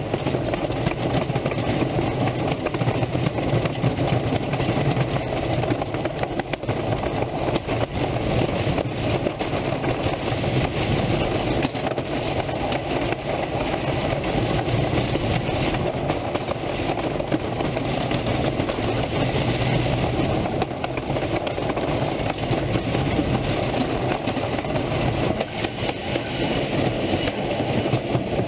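Roller coaster in motion: a steady rumble of the train's wheels on the track mixed with rushing wind.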